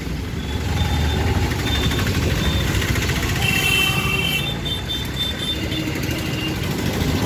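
Motorcycle engines running close by in slow street traffic, a steady low rumble, with a few short faint high tones about three to four seconds in.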